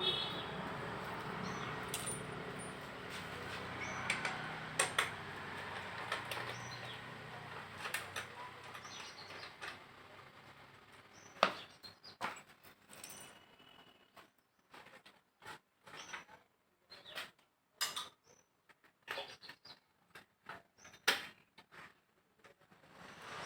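Scattered sharp clicks and small knocks of hand work on a Hero Honda Splendor+ motorcycle as its headlight assembly is taken off, with a steady background hiss in the first half and the clicks coming thicker in the second half.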